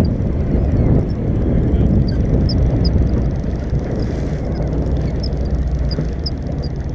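Charter boat's engine droning steadily under way, with water rushing and splashing along the hull. Short faint high chirps come now and then over the drone.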